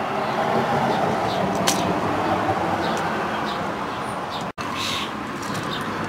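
Steady outdoor rumble of passing street traffic, easing off slightly, with a few faint clicks of wire and screw being handled as a wire is fastened to an outlet's screw terminal. The sound drops out for an instant about four and a half seconds in.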